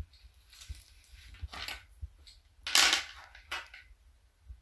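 Hands working thread and plastic string, then taking up small metal scissors: soft rustling and light handling clicks, with one short, louder rustle a little under three seconds in.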